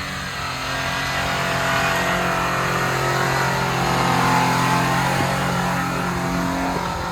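4x4's engine held on the throttle under load in second gear, running at a steady pitch. It grows louder toward the middle and eases off near the end.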